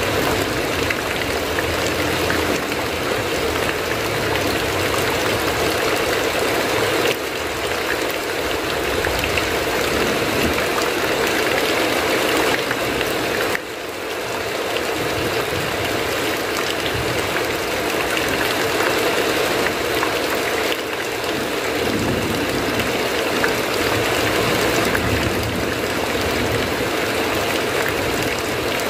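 Heavy rain falling steadily: a dense, even hiss of water with scattered drop ticks.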